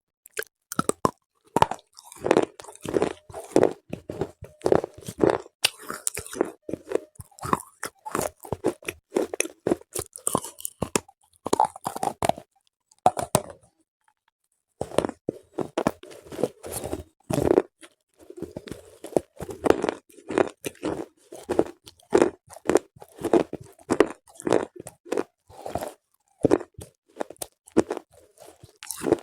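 A person biting and chewing slate bars close to the microphone: crisp, rapid crunches, pausing for about two seconds midway before the crunching resumes.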